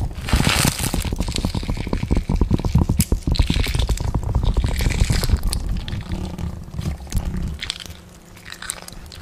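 Dense run of crackling, crunching clicks over a steady low rumble, thinning and growing quieter over the last few seconds.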